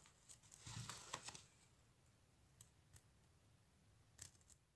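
Faint handling sounds of hand-sewing: fabric rustling in a wooden embroidery hoop as thread is drawn through the cloth, busiest about a second in, then a few light clicks.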